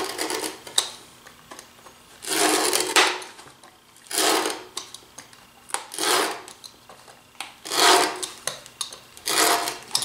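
Utility-knife blade scoring thin 3 mm plywood underlayment: repeated rasping strokes of about half a second each, roughly one every two seconds.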